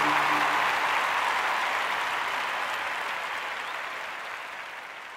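Crowd applause fading out gradually, with the last held notes of a rock music track dying away in the first second.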